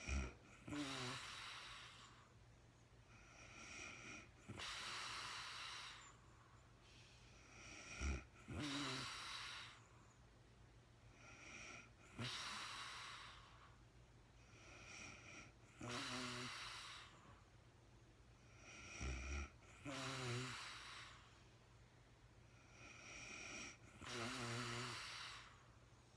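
A sleeping woman snoring and breathing deeply in a slow, regular rhythm, about one breath every four seconds. Each breath is a rush of air, several with a low snore in them.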